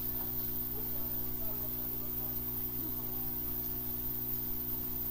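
Steady low buzzing hum that holds one level throughout.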